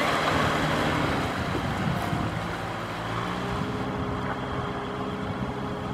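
Diesel farm tractor engine running steadily under load as it tows a trailer of rice sacks along a muddy track, getting slightly quieter as it moves away.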